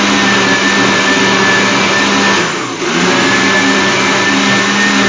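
Electric countertop blender running, blending fruit juice, a steady motor whine. About two and a half seconds in it briefly dips and drops in pitch, then picks up again.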